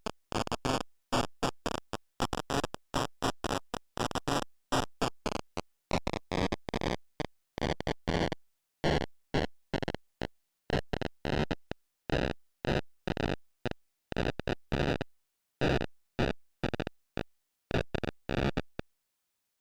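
Sci-fi radio interference sound effect: static chopped into rapid stuttering fragments, a few per second, with a whistling tone underneath that slides down in pitch partway through and then holds. It cuts off just before the end.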